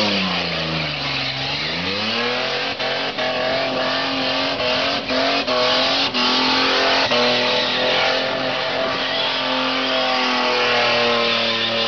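Holden VN Commodore's engine held at high revs during a burnout, over the hiss and squeal of its spinning rear tyres. The revs sag about a second in and climb back, then hold steady with a few brief cuts.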